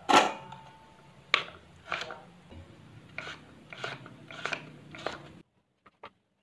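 Pumpkin chunks dropped into a stainless steel bowl with a clatter and a short metallic ring, then a kitchen knife cutting through raw pumpkin onto a wooden cutting board, six cuts. The sound cuts off suddenly near the end.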